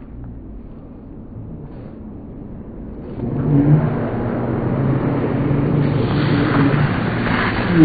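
Road vehicle engine hum, faint at first, then louder and steadier from about three seconds in as the vehicle draws closer.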